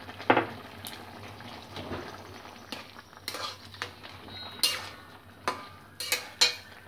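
Steel spatula scraping and clinking against a metal kadai as a simmering curry is stirred: a string of irregular clinks, the loudest about a quarter second in, over the low bubbling of the pan.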